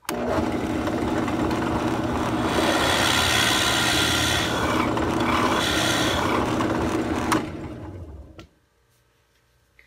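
Drill press running, its 7/16-inch twist bit boring a test hole into a scrap block of wood: a steady motor hum under the bit's scraping, cutting noise. It stops about seven and a half seconds in and dies away over about a second.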